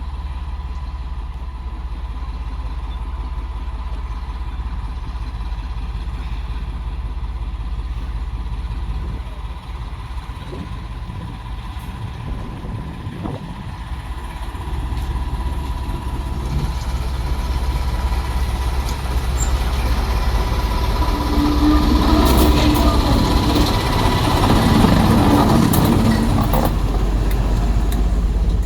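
Heavy diesel engine running with a steady low rumble and a faint steady whine, growing louder over the second half with a rising noisy roar near the end.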